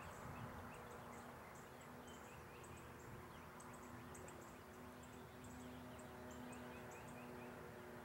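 Near silence outdoors: faint, short, high chirps of small birds over and over, with a faint steady low hum underneath.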